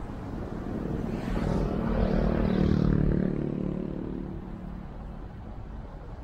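A motor vehicle's engine swells as it passes close by, loudest two to three seconds in and then fading. Steady road noise runs underneath.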